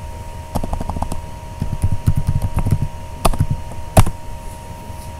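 Computer keyboard being typed on in quick runs of keystrokes, ending with one louder click about four seconds in. A faint steady hum runs underneath.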